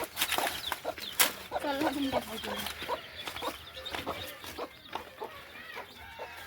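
Chickens clucking in a run of short calls, with a few sharp taps in the first second or so.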